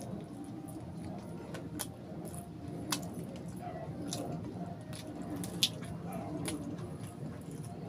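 Close mouth sounds of eating fried chicken by hand: chewing, finger-licking and several sharp wet smacks and clicks, over a steady low background rumble.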